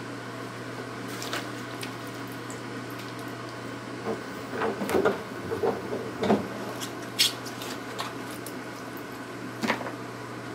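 Wet celosia stems being handled in a plastic basin of chlorine water and moved into a plastic bucket: scattered light knocks, clicks and small wet sounds of stems against plastic, bunched up around the middle with a couple of sharper clicks later. A steady low hum runs underneath.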